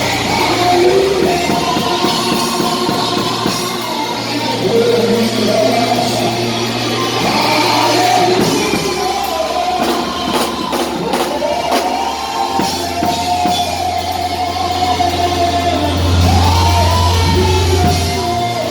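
Church worship music with voices singing and shouting over a sustained, bass-heavy band accompaniment in a large hall.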